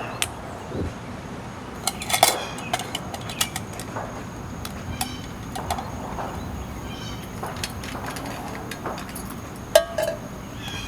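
Metal camp cookware clinking and knocking as coffee is made, a dozen or so separate clinks, several ringing briefly, the loudest near the end, over a steady hiss.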